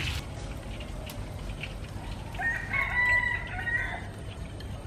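A rooster crowing once, a single call of a little under two seconds about halfway through.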